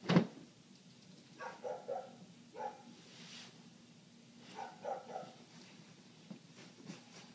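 A dog barking in short runs of two or three barks with pauses between. A sharp thump at the very start is the loudest sound.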